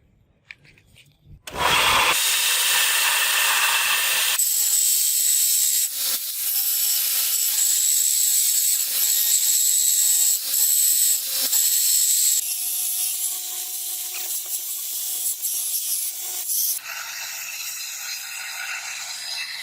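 Power tool abrading metal: a steady, hissy grinding noise with a constant motor pitch that starts about one and a half seconds in. It changes tone twice as the tool is pressed against the rusted iron in different ways.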